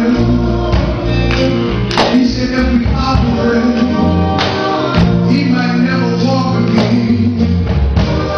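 Gospel song with singing over a band: sustained bass notes under regular percussion hits.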